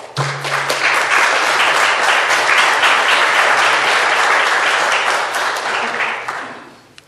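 Audience applauding, a dense steady clapping that starts at once and dies away near the end.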